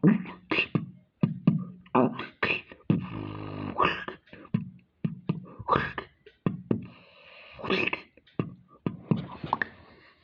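Beatboxing: a fast pattern of mouth-made percussive hits, with short hummed, buzzing pitched tones between them.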